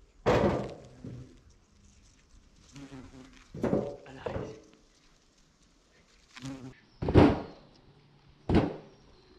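Bumblebee buzzing close to the microphone as it works foxglove flowers, coming in short loud bursts about five times.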